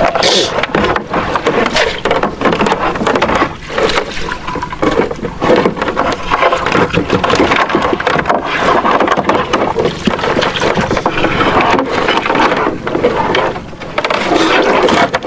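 Lake water splashing and sloshing without a break, with many irregular knocks and rustles.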